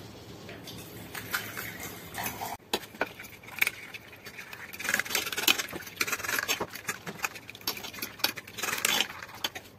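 A metal fork beating a raw egg on a ceramic plate, its tines clicking rapidly against the plate.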